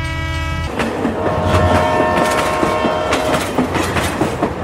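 Train horn sounding and cutting off less than a second in, then a train running with a clattering rattle of wheels on rail joints and a second long horn note.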